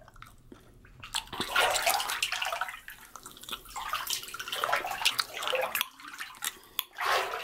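Hand swishing and splashing bathwater in a bathtub, in irregular surges. A freshly dropped bath bomb fizzes faintly underneath, heard alone in the first second as a soft crackle.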